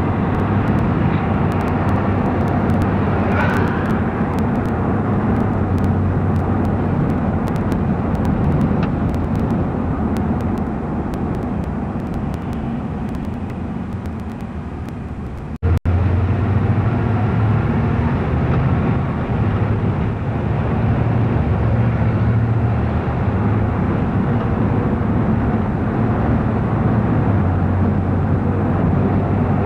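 Steady road and engine noise of a moving car, heard from inside the car. It cuts out abruptly for a moment about halfway through, then carries on a little louder.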